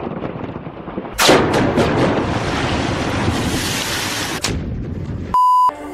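Explosive demolition of a high-rise building: a quick series of sharp blasts from the charges about a second in, then the rumble of the collapse for about three seconds, which cuts off suddenly. Near the end, a short, loud, steady beep.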